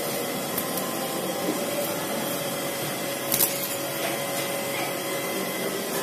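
Steady mechanical whirring with a faint steady hum, and a couple of soft clicks.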